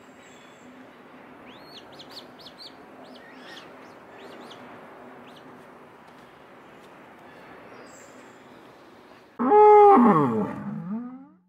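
Short, faint, high bird chirps over a low background, then about nine seconds in a loud sheep bleat that slides down in pitch and fades.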